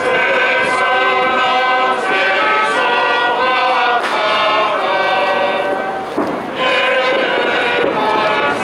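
Choir singing in sustained chords that change every couple of seconds, with a short break for breath about six seconds in.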